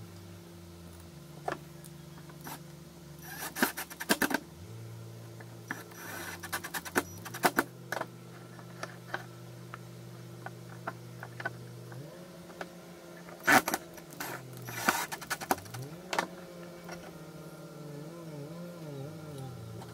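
Handling noises of a red sheet-metal cover being fitted onto a plywood box: scattered clicks, taps and light scrapes of metal against wood, coming in short clusters, over a faint low steady hum.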